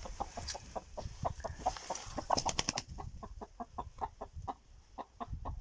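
Chickens clucking: a run of short, quick clucks, busiest about halfway through.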